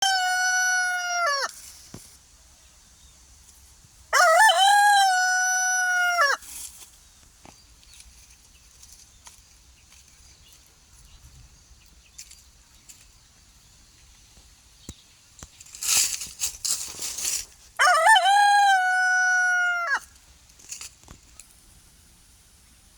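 A rooster crowing: the end of one crow at the start, then two full crows of about two seconds each, one a few seconds in and one near the end. Just before the last crow comes a short burst of noisy rustling.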